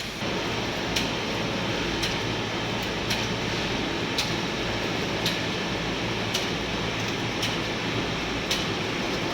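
Fried instant noodle production line running: a steady machine hum and rumble with a sharp click about once a second, and fainter ticks between.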